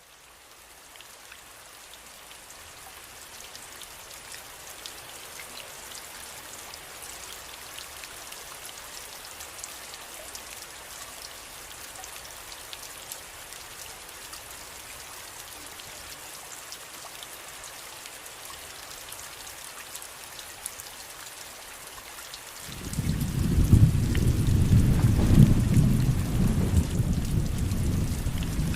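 Steady rain with fine drops pattering, fading in at the start. About 23 seconds in, a loud, low rumble of thunder rolls in over the rain and keeps going.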